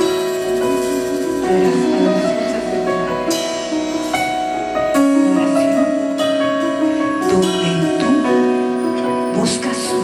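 Live worship band music led by keyboard: sustained, piano-like chords held and changing every second or so.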